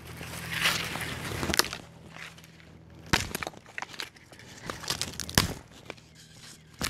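Small wood fire of dry leaf litter and semi-rotten sticks crackling, with scattered sharp snaps and pops, and dry leaves and twigs rustling as it is tended by hand. There is a brief hiss about half a second in.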